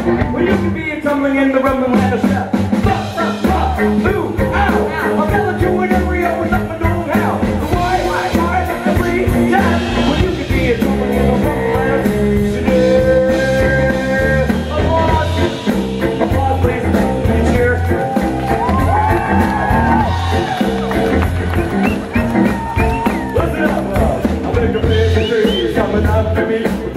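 Live rock band: a bowed cello carries a bending, sliding melody over electric bass guitar and drums.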